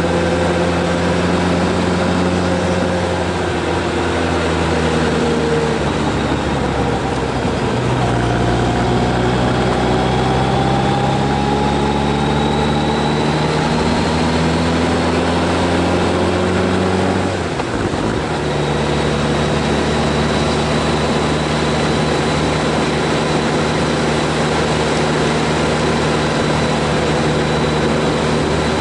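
Vehicle engine running under load on a steep climb. The drone's pitch sinks and rises slowly, and about 17 seconds in it drops sharply with a brief dip in level before settling again.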